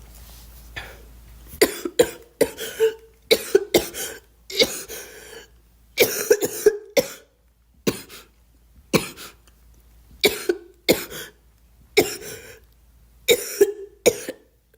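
A girl coughing over and over: a long run of short coughs, about one or two a second, starting about a second and a half in.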